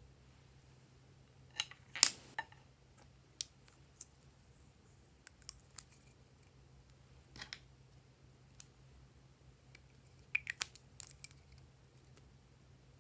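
Scissors snipping pieces off small red lipstick sticks: a few sharp clicks and snips with fainter ticks between. The loudest comes about two seconds in, another around seven and a half seconds, and a quick cluster near ten and a half seconds.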